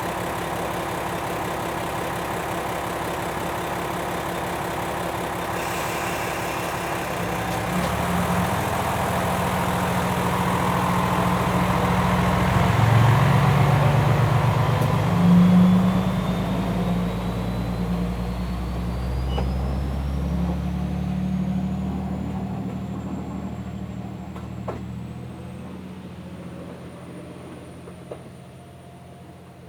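Diesel railcar engine idling, then throttling up and pulling away. The engine swells to its loudest about halfway through, with a rising whine, then fades into the distance.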